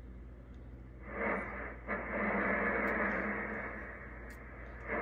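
Static hiss from a Drake R-4B receiver's loudspeaker as the tuning dial is worked. The hiss comes up about a second in, cuts out for an instant shortly after, dips around four seconds and comes back near the end, over a faint steady hum.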